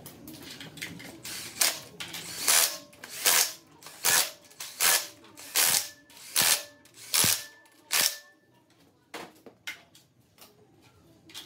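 Bolts on the engine's flywheel being run in with a tool: about nine short rattling bursts, roughly one every 0.8 seconds, then a few fainter clicks near the end.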